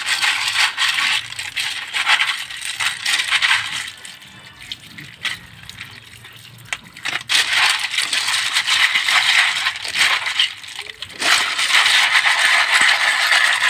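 Clam and cockle shells clattering and clinking against each other as a hand stirs and scrubs them in a plastic colander under running water. The rattling comes in bursts, with a quieter few seconds near the middle.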